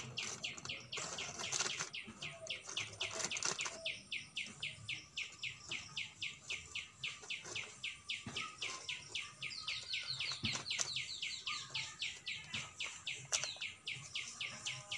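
A bird calling without a break: a fast, even run of short downward-slurred notes, about four or five a second. A few scattered soft knocks and rustles come from soil being scooped and a small plastic nursery pot being handled.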